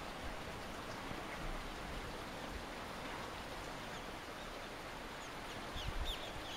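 Steady rushing noise of wind and sea, with a few short high bird calls and a brief low rumble near the end.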